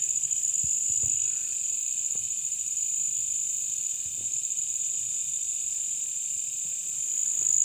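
A night insect chorus, crickets or similar, trilling steadily at a high pitch with a fine rapid pulse. A few faint clicks about a second in.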